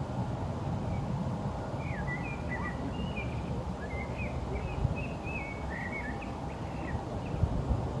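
A small songbird singing a jumbled run of short chirps and twitters, from about two seconds in to about seven, over a steady low background rumble.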